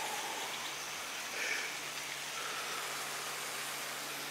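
Steady outdoor background hiss with a faint steady hum underneath; no distinct event stands out.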